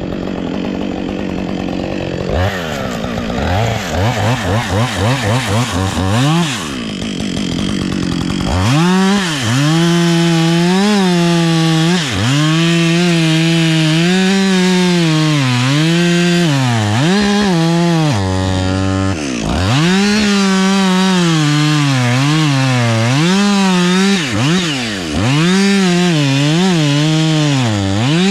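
Gasoline chainsaw cutting oak. The throttle is blipped in quick pulses, then from about a third of the way in the saw runs near full throttle, its pitch dipping and recovering again and again as the chain bites into the wood.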